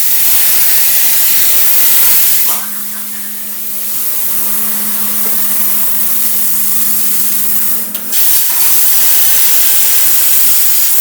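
ArcDroid CNC plasma cutter's torch hissing loudly while cutting, with a steady hum underneath. The hiss drops in level about two and a half seconds in and comes back at full strength near the end. The work ground clamp is not attached for this cut, which comes out poorly.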